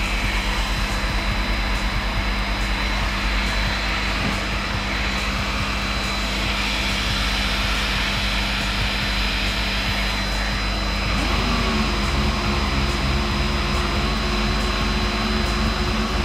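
Steady whirring rush of dust-extraction sanding equipment running. About eleven seconds in, a lower motor hum rises in pitch and then holds steady.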